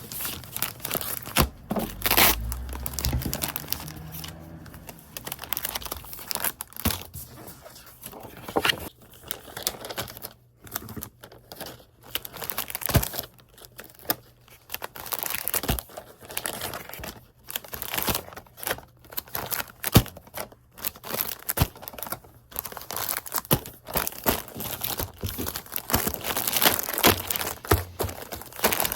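Packaging material being handled: crinkling and tearing in irregular bursts, with short sharp clicks and knocks between them.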